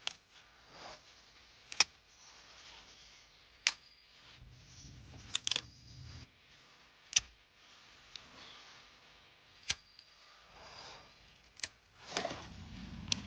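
Plant shoots being snapped off by hand: a sharp snap every couple of seconds, with soft rustling of leaves and handling between them.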